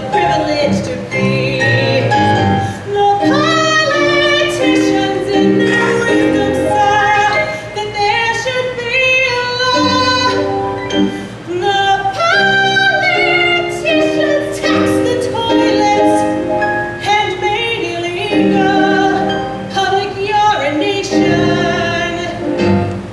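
Stage musical performance: voices singing a show tune, a woman's voice among them, with sustained, gliding sung notes throughout.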